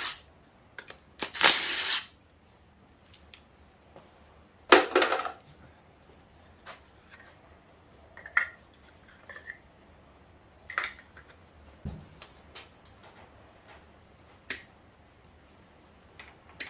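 Cordless drill run in two short bursts, the first under a second and the second about half a second, unscrewing bolts to get the lifters out of an LS V8 block. After that come scattered light clicks and knocks as the parts are handled.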